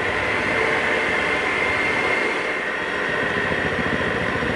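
Electric hand mixer running steadily at its lowest speed, beaters turning through thick cake batter: a constant motor whine.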